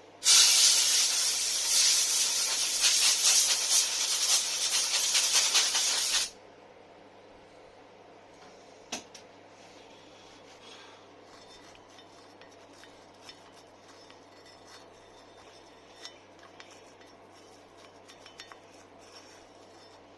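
A loud, steady hiss of pressurised spray for about six seconds, starting and stopping abruptly, then faint clinks of metal parts being handled.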